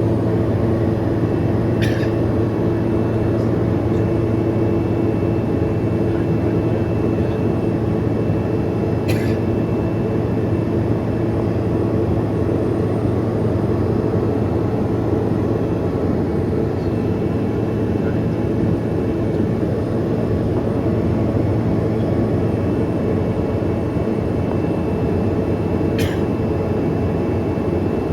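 Steady drone of an aircraft engine, with a few faint clicks.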